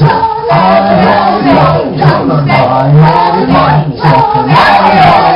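Several voices singing and chanting together in a repeating rhythm, loud and continuous.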